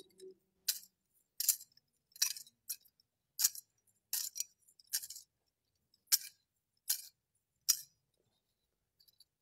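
Metal chains of a thurible clinking as the Gospel book is incensed: nine sharp clinks in three groups of three, about three-quarters of a second apart.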